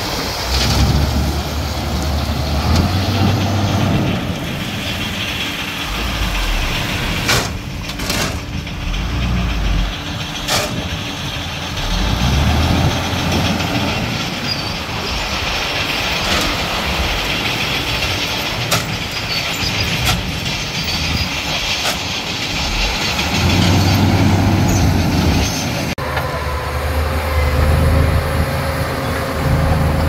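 Diesel engine of heavy earthmoving machinery working on a gravel road job, its note swelling and easing with load, with a few sharp metallic clanks about a third of the way through.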